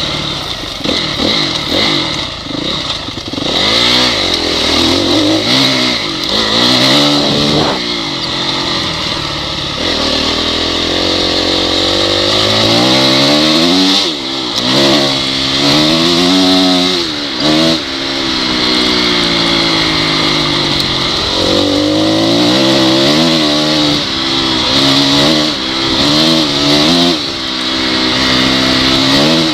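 Honda CRF single-cylinder four-stroke dirt bike engine under way, its pitch rising and falling again and again as the throttle is opened and closed, with a couple of short drops in the middle.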